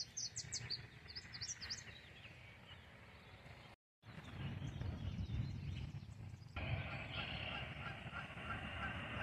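Wild birds calling: a quick run of high chirps in the first two seconds, then, after a cut, a faint steady outdoor background with repeated faint calls, which could be distant geese honking.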